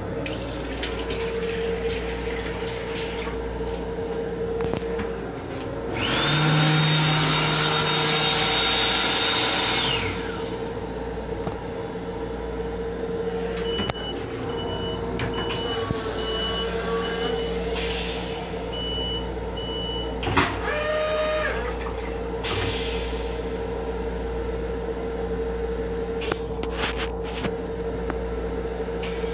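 M7 railcar's steady running hum, with the restroom sink's built-in hand dryer blowing with a high whine for about four seconds, starting about six seconds in. Later comes a run of short high beeps, then a click and a brief chime.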